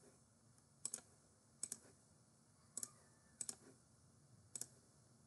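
Computer mouse clicks, about five of them roughly a second apart, each a quick pair of sharp ticks, against near silence.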